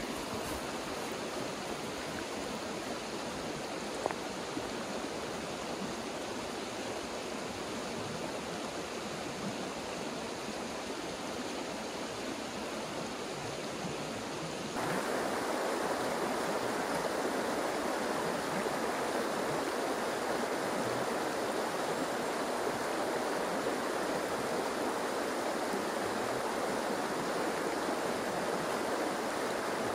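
Steady rushing of flowing river water. The rush steps up suddenly about halfway through and stays louder.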